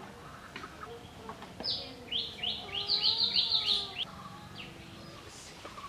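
A bird calling a quick run of about eight high notes, each sweeping downward, lasting about two seconds and starting about a second and a half in. A single similar note follows a little later.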